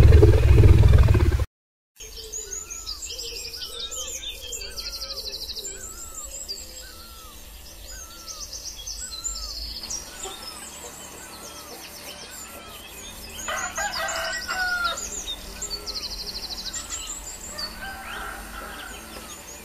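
A loud low rumble cuts off about a second and a half in. Then small birds chirp and trill over and over, and a rooster crows about thirteen seconds in.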